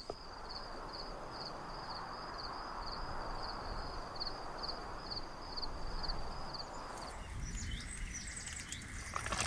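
Outdoor night ambience: a steady hiss with a single high chirp repeating evenly about twice a second. About seven seconds in, the hiss and the regular chirping stop and scattered bird chirps take over.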